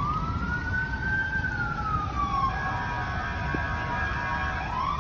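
Emergency vehicle siren wailing: the pitch rises at the start, falls slowly over about two seconds, then rises again near the end, with a steadier siren tone alongside in the middle. A low rumble runs underneath.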